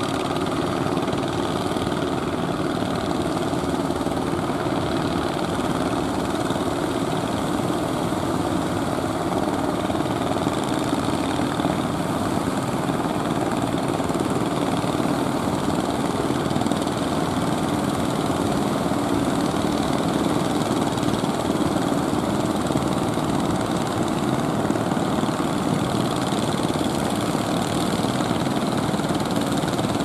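Small engine of a wooden outrigger fishing boat running steadily, with the wash of surf around it.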